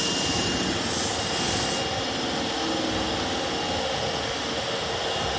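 Subway electric train running in the station: a steady rushing roar, with a brighter hiss near the start. No horn is heard.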